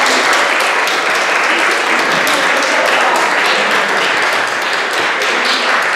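Audience applauding loudly: a dense, steady mass of many hands clapping.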